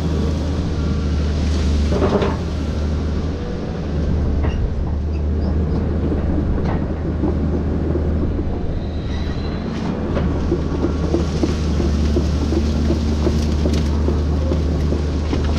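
Volvo excavator's diesel engine running with a steady low drone. Scattered knocks and cracks come over it as the machine works through citrus trees, and there is a brief squeal about nine seconds in.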